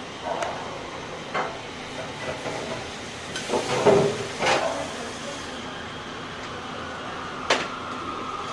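Commercial kitchen clatter: scattered knocks and clinks of cookware and plates on a stainless steel counter over a steady hiss, with the loudest cluster of knocks about three and a half to four and a half seconds in. A faint steady whine sets in near the end.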